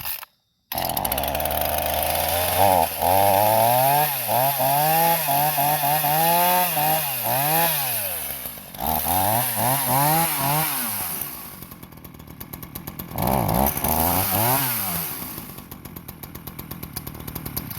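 Ryobi 16-inch two-stroke chainsaw engine catching about a second in, then revved up and back down over and over, settling to a lower idle, revved a few more times, idling again, and cut off suddenly at the very end with the kill switch.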